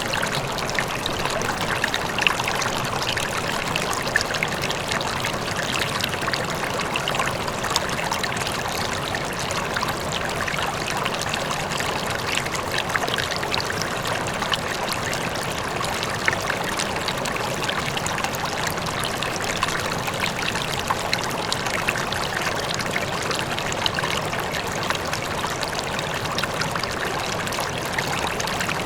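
River water flowing steadily, a continuous rush flecked with many small splashes and trickles, with a faint waterfall in the distance.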